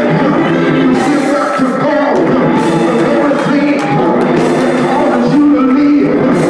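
Church praise music: held chords that change every second or so, with voices singing and a few sharp hits.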